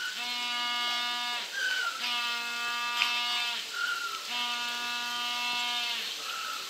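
A penguin braying: three long, steady brays of over a second each, with a short rising squeak drawn in between them. This is the pattern of the braying display call.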